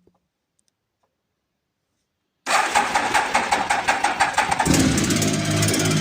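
Triumph Tiger 1050's inline three-cylinder engine being started: the electric starter cranks it with a rapid rhythmic churn for about two seconds, then it catches and settles into a steady idle. This is the engine whose knock is in question.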